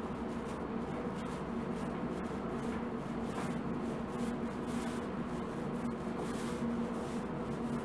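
Small paint roller rolled back and forth through wet paint on a wooden cabinet door, a soft swishing rub with each stroke, over a steady low hum.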